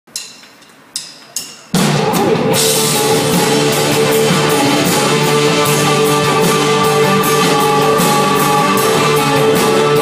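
Live pop-rock band playing a song's instrumental intro through a stage PA during a sound check: three sharp hits with ringing tails in the first second and a half, then the full band with drums and electric guitar comes in and plays steadily.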